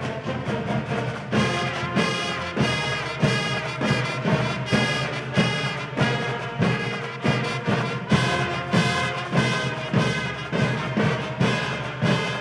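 A university sports pep band playing a brass-led tune, with drums hitting a steady beat about every half second.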